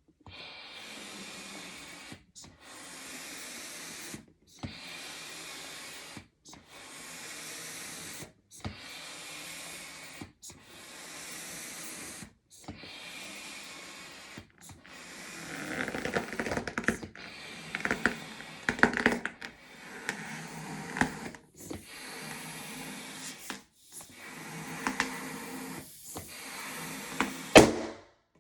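A balloon pump forcing air into a 12-inch latex balloon in repeated hissing strokes about every two seconds, with the stretched rubber squeaking and crackling from about halfway through. Near the end the overinflated balloon bursts with a single very loud pop.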